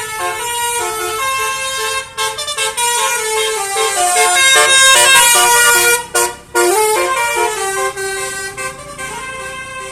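Basuri telolet horn, a multi-tone vehicle horn, playing a tune of stepping notes sounded together as chords. It is very loud, with short breaks about two seconds and six seconds in.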